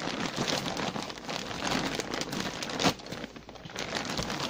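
Clear plastic bags of pillowcases crinkling and crackling as they are handled and pushed down into a cardboard box, with one sharper crack near three seconds in.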